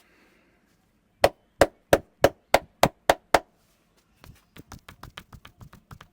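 A barber's hands striking the body in a percussive massage: eight loud, sharp slaps at about three to four a second, then, after a short pause, a quicker run of lighter taps, about seven a second.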